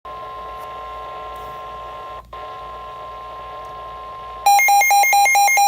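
NOAA Weather Radio's steady 1050 Hz warning alarm tone, with a brief dropout in the middle. About four and a half seconds in, a much louder rapid high-low electronic beeping from the weather radio receiver's alarm takes over.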